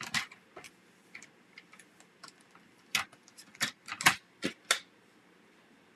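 Sharp clicks and taps as a paper trimmer and cardstock are handled on a craft table: one near the start, then a cluster of about five in the second half.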